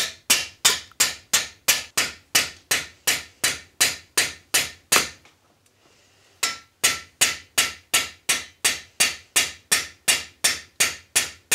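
A flat-faced hammer peening the edge of a high-carbon steel Austrian scythe blade on a narrow-faced anvil, drawing the edge out thin. Steady, even, light blows come about three a second, with a pause of about a second midway before they resume.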